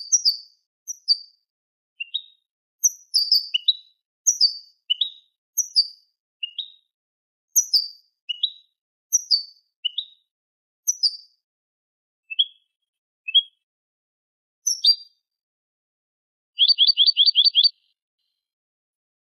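European goldfinch singing a tutor song for teaching young birds: clear high notes spaced out with short pauses, mostly pairs of falling notes alternating with short rising notes. Near the end comes a quick rattle of about seven notes in a second.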